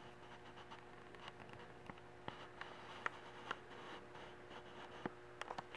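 Quiet indoor room tone: a faint steady hum with scattered soft clicks and taps, a few of them close together near the end.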